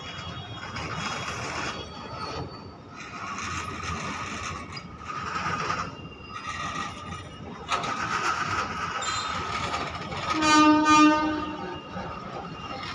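Goods train of covered box wagons rolling slowly past, with a noisy rumble and the steel wheels squealing in a steady high tone. About ten seconds in comes a brief, louder pitched tone.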